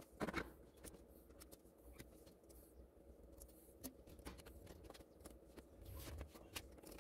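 Faint clicks and light rustles of parts being handled and fitted on the back of an opened LCD TV panel, with one louder rustle just after the start and scattered small clicks after it, over a low hum.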